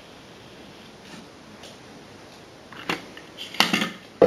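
Faint room hiss, then near the end a few sharp clicks and clattering knocks of small hard objects being handled, the loudest at the very end.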